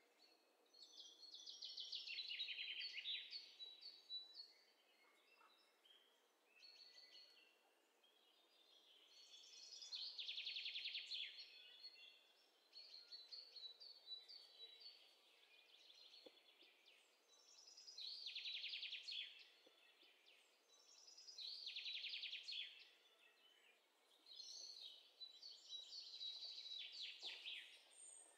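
Birds chirping sound effect: songbirds singing in about five bursts of fast, high trills a few seconds apart, over a faint hiss.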